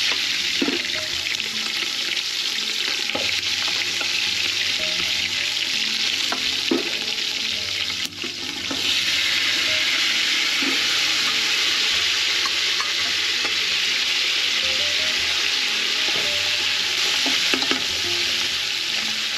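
Pork ribs sizzling as they sear in hot oil in a steel pot, with a few clinks of a spoon and bowl against the metal. The sizzle dips briefly about eight seconds in, then comes back louder and steady.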